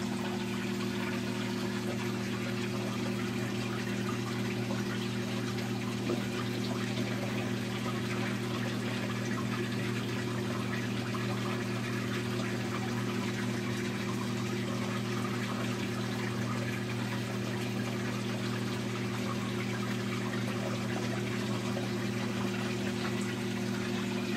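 Saltwater aquarium pumps and water circulation running steadily: a constant low hum under a continuous rush and trickle of water.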